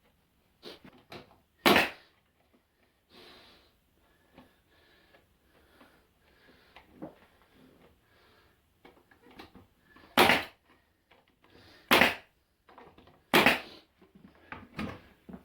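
Brad nailer firing four sharp shots, one about a second and a half in and three close together near the end, driving nails to fix OSB edging onto chipboard. Quieter knocks and shuffling of the wood pieces come between the shots.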